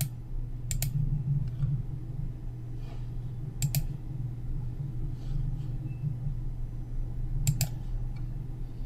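Computer mouse clicking: three quick pairs of clicks a few seconds apart, with a few fainter ticks between, over a steady low hum.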